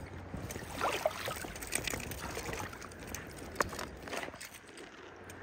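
Shallow river water trickling and splashing, with a few sharp splashes and knocks through the first four seconds, settling into a quieter steady trickle near the end.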